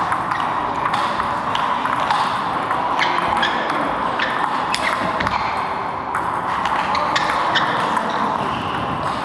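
Table tennis ball clicking off bats and the table in an irregular run of sharp ticks, mixed with ball clicks from play at another table.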